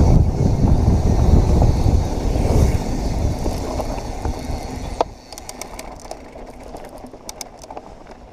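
Mountain bike riding a dirt trail: wind and trail rumble on the camera for about five seconds, fading as the bike slows. After a sharp tick it goes much quieter, with scattered light clicks.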